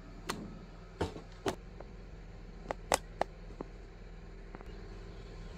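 Scattered light knocks and clicks, about seven in the first four seconds and the sharpest near three seconds in, over a steady low hum.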